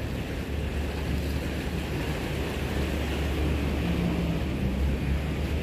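Small sea waves washing against granite boulders, with a steady low rumble of wind on the microphone.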